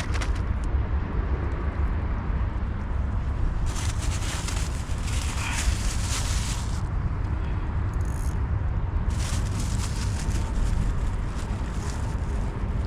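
Steady low rumble of wind buffeting the microphone outdoors, with two spells of hissing a few seconds long, about four and nine seconds in.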